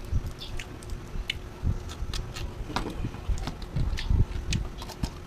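Eating crabs by hand: shells cracking and being pulled apart, with mouth smacking and chewing. The crackles come as many small irregular clicks, mixed with a few dull thumps.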